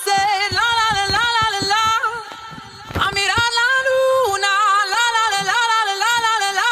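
A single high-pitched voice singing a melody line that bends up and down, with a short dip about two seconds in.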